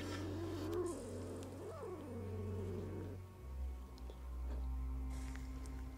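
Domestic cat giving a long, low, wavering yowl for about three seconds, its pitch sliding down partway through, then trailing off. It is an agitated cat's protest at the spirit board held up to its nose.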